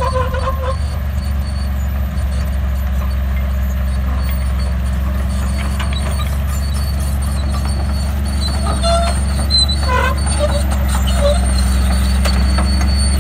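Komatsu D31P crawler bulldozer's diesel engine running with a steady low drone, with short squeaks and clinks from its steel tracks, most of them a few seconds before the end.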